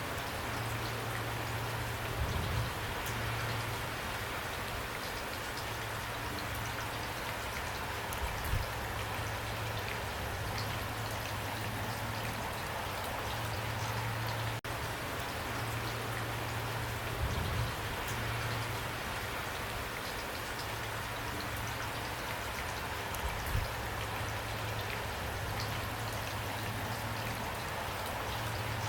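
Heavy pouring rain: a steady hiss of many drops, with a few low thuds now and then.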